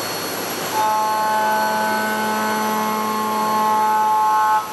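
5-axis machining center rough-milling an aluminium 6061 impeller with a 20 mm end mill at 6,200 rpm under flood coolant. A steady hiss of coolant spray and spindle comes first. About a second in, the cutter bites and a steady, several-toned cutting whine sets in, then stops suddenly near the end.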